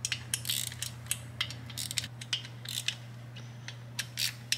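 Hand ratchet wrench clicking in short, irregular runs as the cam cover bolts are cracked loose.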